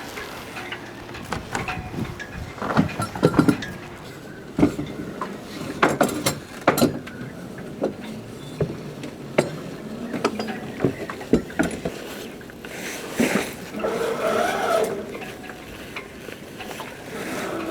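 Irregular metallic clanks and knocks of hand tools and loose parts being handled, with a brief higher-pitched squeak about three-quarters of the way through.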